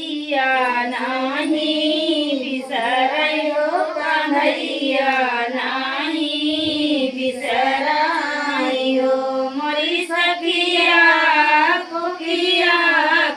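Women singing a sohar, the traditional folk song sung to celebrate a childbirth, in long held melodic lines.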